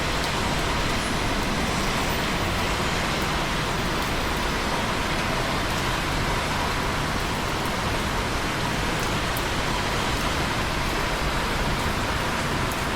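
Steady rain falling, an even, unbroken hiss with a few faint drop ticks.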